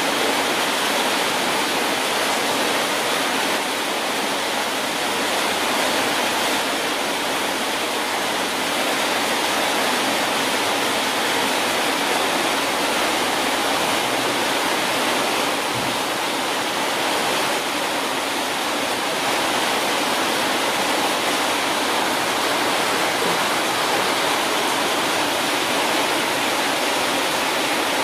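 Steady, even rushing hiss with no breaks or changes, like running water or white noise.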